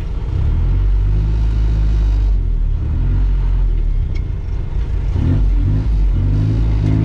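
Off-road 4x4's engine running under load as the vehicle crawls over a rutted mud track, a low rumble with the revs rising briefly twice near the end.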